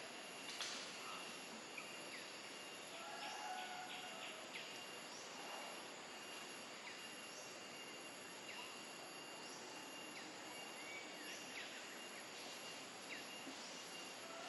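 Forest ambience: a steady high insect whine over a soft hiss, with short bird chirps scattered throughout.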